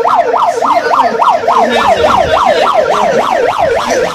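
Ambulance's electronic siren in fast yelp mode, its pitch sweeping up and down about five times a second without a break.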